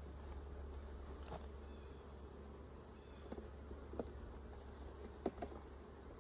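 Honeybees buzzing around an open hive in a steady faint hum, with a few light clicks and knocks from frames being worked, the sharpest about four and five seconds in.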